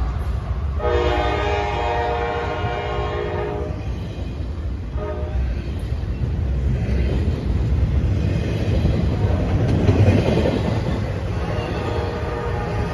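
Passing CSX freight train: the locomotive's air horn sounds a long blast, a chord of several tones, from about a second in for about three seconds, then a short blast about five seconds in. Throughout, the double-stack container cars roll past close by with a steady heavy rumble on the rails.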